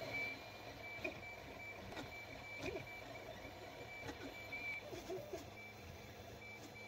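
Creality CR-10 3D printer running, its stepper motors giving a high whine that cuts in and out as the print head moves. Scattered light knocks and clicks come from the hot end running into a torn, lifted part of the print.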